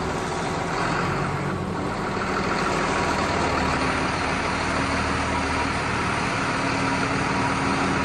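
John Deere 7710 tractor's six-cylinder diesel engine idling steadily.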